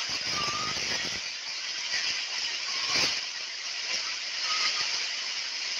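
Heavy rain pouring down in a steady hiss, with a single knock about three seconds in.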